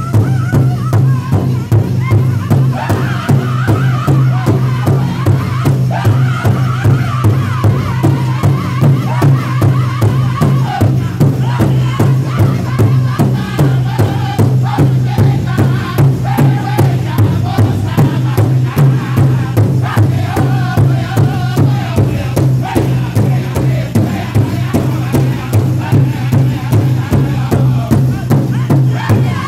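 Powwow drum group singing a song together in loud, wavering voices over a steady beat, several men striking one large shared drum with drumsticks in unison.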